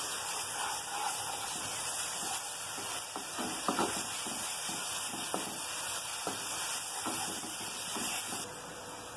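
Onion-and-spice masala sizzling with a steady hiss in a nonstick kadai, a little water just added to keep it from burning. A wooden spatula scrapes and taps against the pan at irregular moments as it is stirred.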